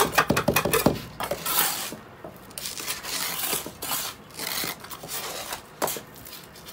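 A quick run of sharp metallic taps in the first second, then repeated scraping as a small trowel scoops damp cement mix from a pile and spreads it into a metal tile mould.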